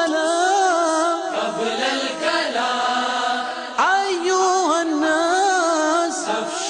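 Wordless devotional vocal chanting of a naat: a melodic sung line that bends and glides in long phrases, a new phrase starting about four seconds in.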